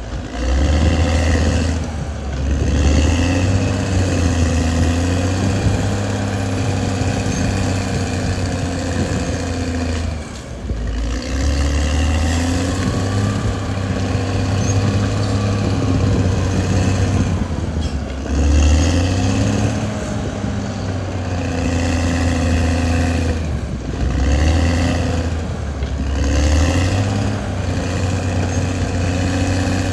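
Caterpillar D6R XL bulldozer's diesel engine running under load. Its note sags and picks back up several times as the load changes.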